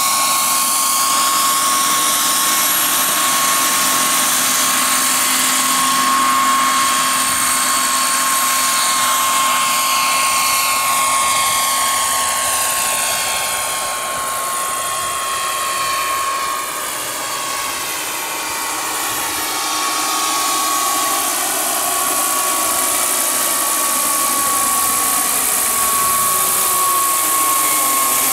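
Model turbine engine of a radio-controlled scale Sikorsky S-64 Skycrane helicopter running with a steady high-pitched whine, with the rotor noise around it. The sound shifts as the helicopter moves about, dipping a little in level around the middle before coming back up.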